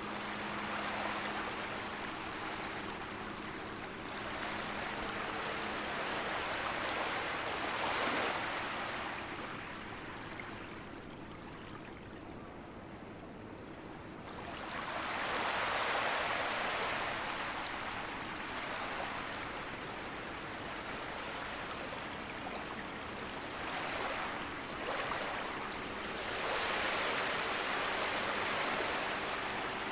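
Gentle sea waves lapping on a beach, the wash swelling and easing every several seconds, with a quieter lull around the middle.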